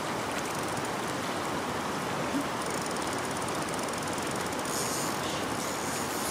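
Shallow creek water running steadily over a rocky riffle.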